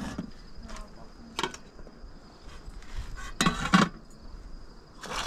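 Scattered clinks of a metal spoon, pots and lids against metal trays, with a louder clatter about three and a half seconds in. A steady high cricket chirr runs underneath.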